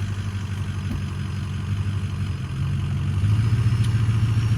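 Truck engine running steadily, growing louder about three seconds in.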